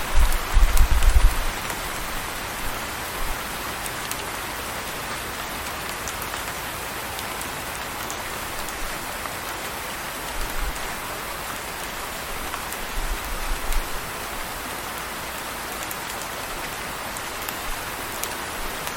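Steady rain falling, an even hiss of drops, with a low rumble near the start and again about two-thirds of the way through.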